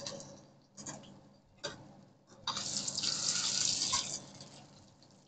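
Two light clicks of a spatula against a frying pan, then a burst of sizzling for about a second and a half from potato pancakes frying in hot oil as they are turned.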